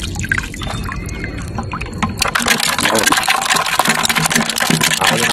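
Shallow seawater splashing and sloshing as a crab is scooped out and handled, with a thin steady high whine in the first two seconds. After that the splashing becomes louder and busier.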